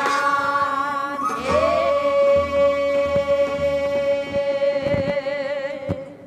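Female voices singing a Namdo folk song (namdo minyo) in Korean pansori style, drawing out one long held final note together after a short upward slide. The note breaks off just before the end, with a single sharp stroke.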